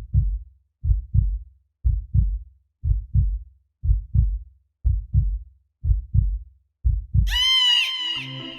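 Heartbeat sound effect: low paired thumps, lub-dub, about once a second, eight beats in all. Near the end a bright, high tone slides in and then falls away.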